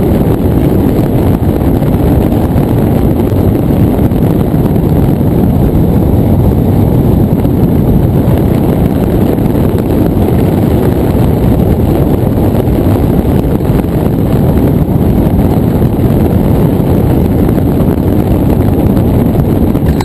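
Loud, steady wind rushing over the microphone of a camera mounted on a hang glider in flight, a dense low rumble of buffeting airflow with no distinct tones.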